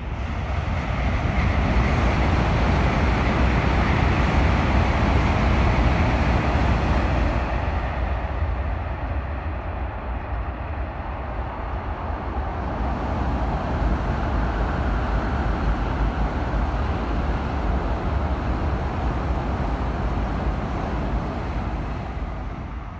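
Shinkansen bullet train passing at speed: a loud rushing noise over a deep rumble that swells within the first couple of seconds, eases off about a third of the way in, rises again and fades near the end.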